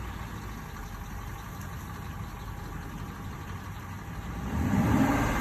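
Aston Martin V8 Vantage's 4.7-litre V8 idling, getting louder about four and a half seconds in. The owner hears a ticking noise from this engine only once it has warmed up, and revving seems to cure it.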